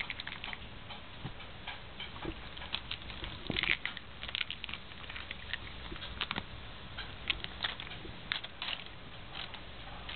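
A cat's claws catching and scratching at a terry towel as it paws and rolls on it: irregular scratchy clicks and fabric rustles.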